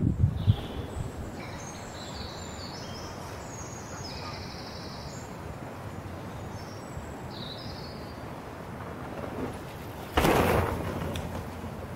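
Small birds chirp over a steady outdoor hiss. About ten seconds in, a Vitus Escarpe mountain bike flies low over the microphone in a jump, and a sudden rush of tyre and air noise fades away within about a second.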